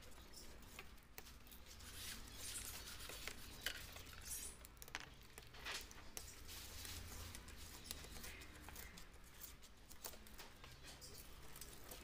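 Faint, irregular scratching and small clicks of old polarizer film and glue being picked and scraped off LCD panel glass by hand, over a low steady hum.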